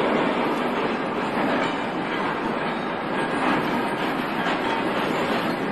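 A train running on the rails: a steady rumble with occasional faint clicks from the wheels.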